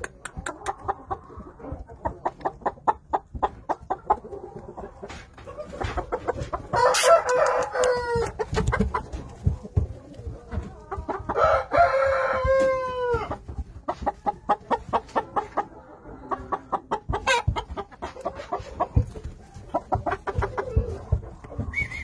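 Yamato gunkei cockerel crowing twice, each crow lasting about a second and a half and ending on a falling note, the first about 7 seconds in and the second about 11 seconds in. Short sharp clicks, several a second, run between the crows.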